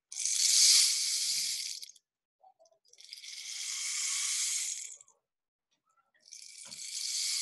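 Cactus rain stick being tipped end over end: tiny pebbles trickle down the hollow tube past the nails hammered through its wall, making a soft rain-like rushing hiss. Three pours of about two seconds each with short pauses between, the first the loudest.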